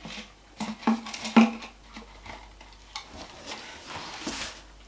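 Unpacking handling noise: a cardboard tube being handled, with three sharp knocks in the first second and a half, then soft scraping and a brief rustle near the end.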